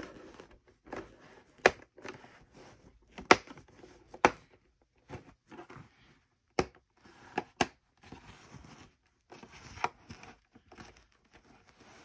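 Plastic snap clips of an HP All-in-One 20-C434's back cover clicking into place as the cover is squeezed shut around its edge: sharp, irregular clicks about every second, with soft rustling from hand and plastic handling in between.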